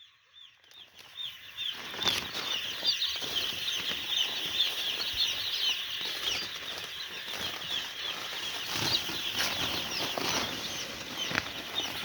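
A flock of two-day-old chicks peeping, many short high chirps overlapping continuously, with scattered rustling knocks. It is faint at first and swells to full strength within the first two seconds.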